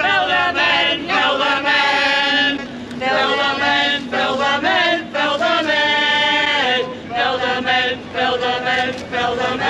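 A crowd of protesters chanting together in unison, some phrases drawn out into long sung notes.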